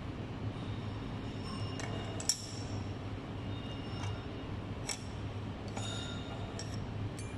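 Light metal-on-metal clinks and taps, about six of them, spread irregularly, some ringing briefly, with the sharpest a little over two seconds in. Under them runs a steady low hum.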